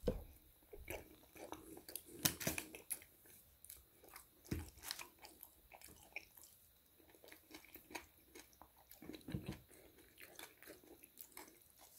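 A person chewing gravy-dipped chips up close, with irregular soft smacks and clicks of the mouth.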